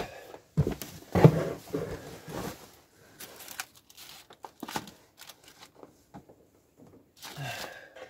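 Handling noises as spilled blueberries are gathered up by hand from a wooden plank floor: rustling and scraping with light knocks, busiest in the first couple of seconds, then scattered taps.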